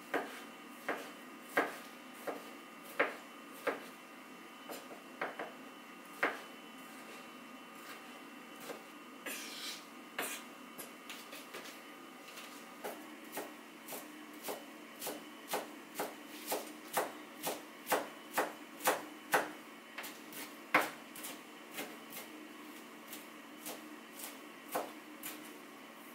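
Chef's knife chopping on a wooden cutting board: single, irregular cuts through tomatoes at first, with a short scrape about nine seconds in. From about halfway the knife chops fresh herbs in a steady run of taps, about two a second.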